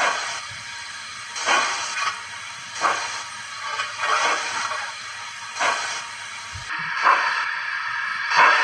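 Recorded GWR 56xx steam locomotive sound played by a Zimo sound decoder through a model locomotive's small speaker: slow exhaust chuffs about every second and a half, with a steady hiss between them.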